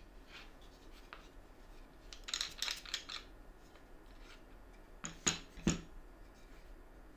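Plywood pieces of a homemade corner clamp being handled on a work surface: a quick run of light wooden scrapes and clicks about two to three seconds in, then three sharp wooden knocks about five seconds in as the clamp is set down.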